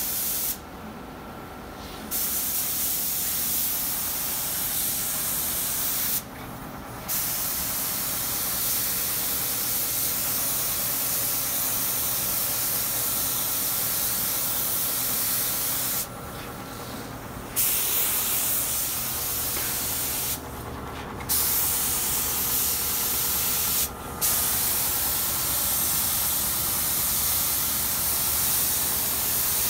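Compressed-air spray gun hissing steadily as it sprays a coat of 20-sheen pre-catalyzed lacquer, in long passes broken by several short pauses.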